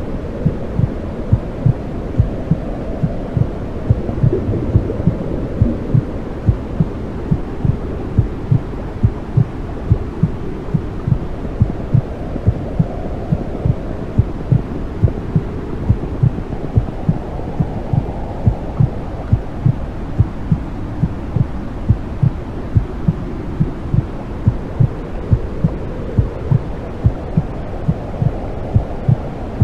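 Womb sound: a mother's heartbeat thumping regularly over a low whooshing rush like amniotic fluid. The rush slowly swells and fades.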